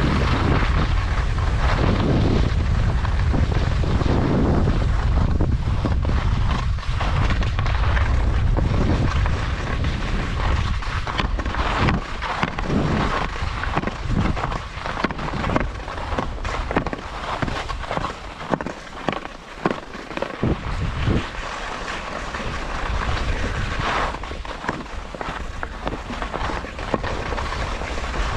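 Skis hissing and scraping over snow on a downhill run, with wind buffeting the microphone. The low wind rumble is heaviest through the first ten seconds or so; after that the sound is more uneven, with many short scrapes.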